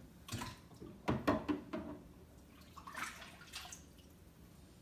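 A hand swishing Star San sanitizer solution around in a plastic fermenter bucket: a series of short splashes and knocks, the loudest cluster about a second in.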